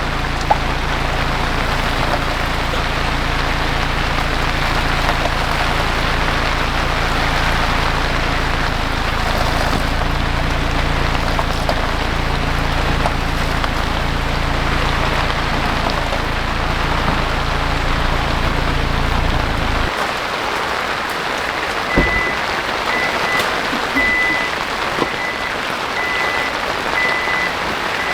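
Steady rain falling, with a car engine idling underneath that cuts off abruptly about two-thirds of the way through. Soon after comes a single thump, then a high electronic beep repeating about one and a half times a second.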